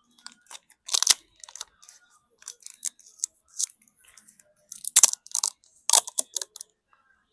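Irregular crackling and clicking from small parts of an opened smartphone being handled and worked on, with louder crunchy crackles about a second in and again around five and six seconds in.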